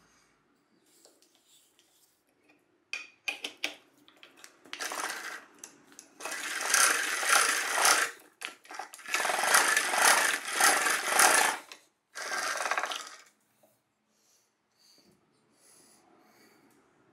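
Geared drill attachment of a 1920s Stewart Handy Worker vise boring a hole through a wooden block: a few clicks, then the bit grinding into the wood with the gears turning, in about four bursts as the block is pushed on and eased off.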